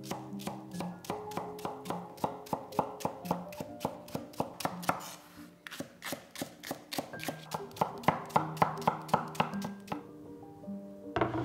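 Chef's knife slicing a leek on a wooden cutting board: a steady run of crisp knife strokes, about four a second, with a brief pause about five seconds in, stopping about ten seconds in. Soft background music plays underneath.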